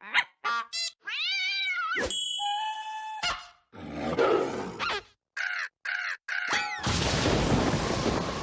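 A rapid string of cartoon sound effects: quick chirps, a call that rises and falls in pitch, held whistle-like tones, a scratchy rasp, more short animal-like calls, then a long steady hiss near the end.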